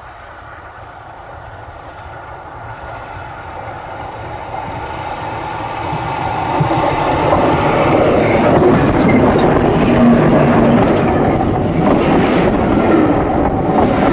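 LNER A4 Pacific steam locomotive 60007 Sir Nigel Gresley approaching along the track and growing steadily louder until it rolls directly overhead. Its wheels clatter on the rails in the last few seconds.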